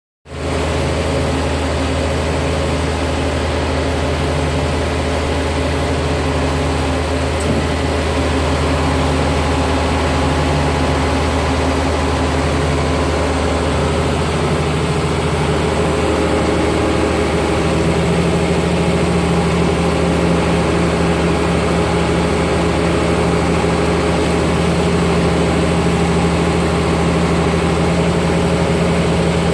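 Engine of a hydraulic boom lift running steadily with a deep hum. A higher hum comes and goes in the first half, then holds steady from a little past halfway.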